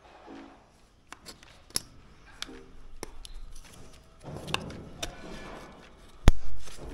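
Scattered taps and knocks of handling work, with one loud sharp knock about six seconds in.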